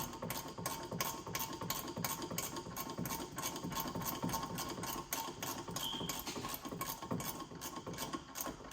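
Harbor Freight Icon G2 ratchet clicking in a fast, even rhythm, about four clicks a second, as the handle is swung back and forth on a fastener.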